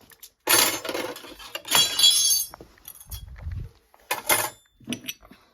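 Pieces of brass scrap clinking and clattering together as they are handled and put together for weighing, one giving a short metallic ring about two seconds in, followed by a dull thump and a few small clicks.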